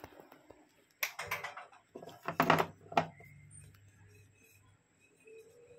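Handling clatter: a cluster of sharp clicks and knocks about a second in, then a louder run of knocks around two to three seconds in.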